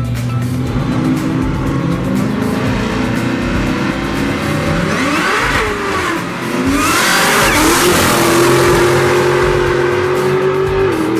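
Two drag-racing cars launching off the line, their engines revving up in rising pitch about five seconds in, then a loud full-throttle run down the strip. Music plays underneath.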